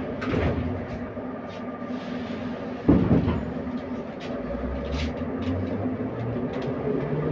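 Inside an 81-714.5 metro car running through the tunnel: steady running noise with held tones. There is a sharp knock about three seconds in, and from the middle on a low motor whine rises in pitch as the train picks up speed.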